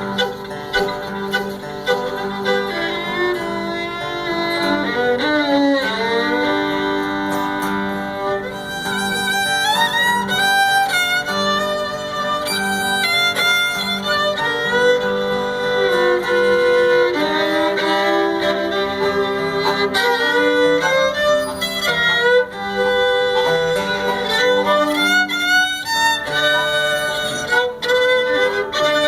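Fiddle playing an imitation of railroad sounds, with a steady low drone string held under notes that slide up and down and quick, busy bowing.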